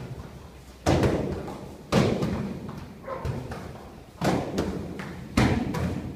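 Kicks and strikes smacking into handheld kick pads: four loud hits at irregular gaps, each echoing briefly in a large hall, with a few fainter hits between.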